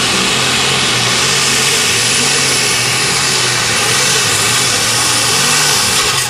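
Case International super stock pulling tractor's engine running loud and steady at full throttle, under load as it launches down the track, with a thin high whine over it through the middle few seconds.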